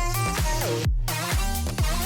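Background music: upbeat electronic dance-pop with a steady beat of about two strokes a second and a synth melody, the vocals pausing here.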